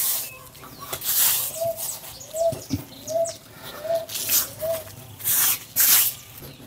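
Hands scooping and scraping dry, granular bokashi fertilizer mix off a plastic tarp and dropping it into a plastic bucket, in several gritty, rustling bursts. A bird in the background repeats a short rising-and-falling call five times, about two-thirds of a second apart.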